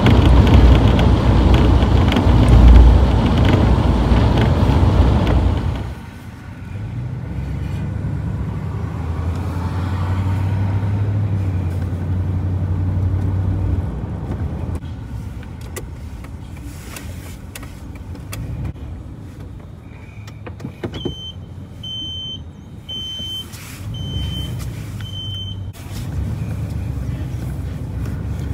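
Ford E-250 van driving, heard from inside the cab: loud, even road and wind noise for about the first six seconds, then, after a cut, a quieter low engine and tyre hum. Near the end comes a run of about five short, evenly spaced high beeps.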